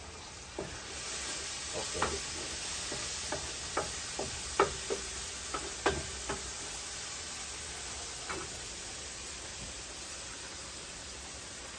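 Curry masala with water just added sizzling in a wide pan, a steady sizzle that swells about a second in. A spoon knocks and scrapes against the pan in a dozen or so sharp ticks as it is stirred, stopping a little past halfway, leaving the sizzle alone.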